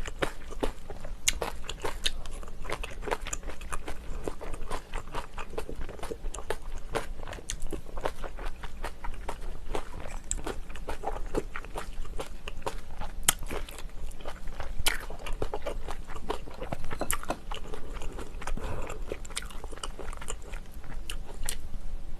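Close-miked eating: a dense, continuous run of crunching, chewing and wet mouth clicks.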